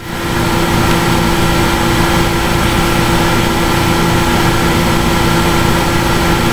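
Steady loud hum and hiss with a few held tones: noise and feedback picked up by a computer's built-in microphone.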